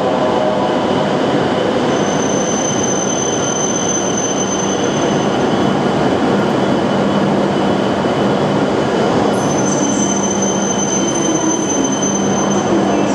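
12-car Hokuriku Shinkansen train running into the platform under braking, a steady loud rumble of wheels on rail with a thin high-pitched squeal that comes in twice, each time for about three seconds.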